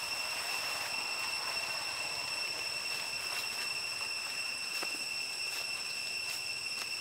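Steady high-pitched drone of insects in the forest, holding two constant pitches without a break, with a few faint ticks scattered through it.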